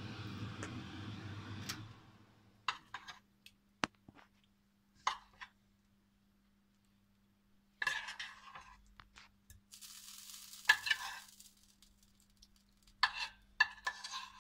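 A metal fork clinking and scraping on a ceramic plate of roasted peppers and feta, in short scattered strokes. For the first two seconds a steady hiss is heard, which stops abruptly.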